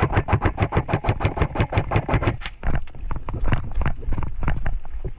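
Airsoft gun firing a rapid full-auto burst, about seven shots a second, for the first two and a half seconds, then scattered single shots and knocks.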